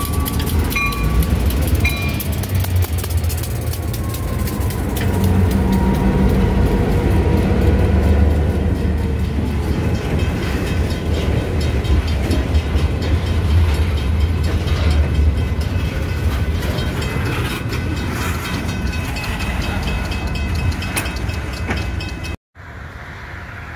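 Norfolk Southern GP38-2 diesel locomotives passing close by with a deep engine rumble, a bell-like ring repeating about once a second near the start. The freight cars then roll past with steady wheel noise and clicking over the rail joints, with a thin high squeal late on, until the sound drops abruptly near the end.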